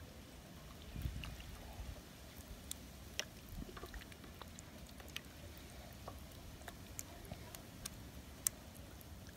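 Faint wet squishing of hands working raw chicken pieces through buttermilk in a stainless steel tray, with scattered small clicks and ticks.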